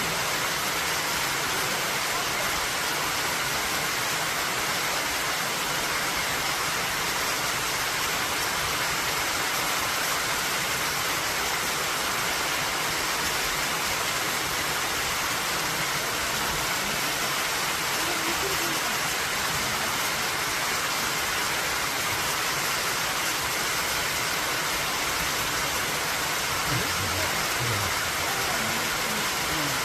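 Steady rushing of water from a mountain waterfall or stream.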